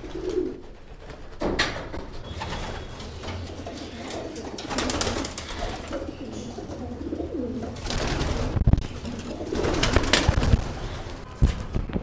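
Racing pigeons cooing in a loft, a low rolling murmur throughout. Sharp clatters from a wire-mesh cage door being handled come near the end and are the loudest sounds.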